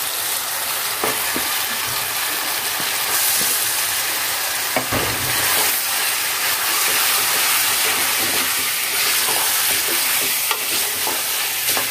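Raw beef pieces frying in hot oil and spice paste in an aluminium pot, stirred with a wooden spatula: a steady sizzle with a few knocks of the spatula and meat against the pot, the clearest about five seconds in.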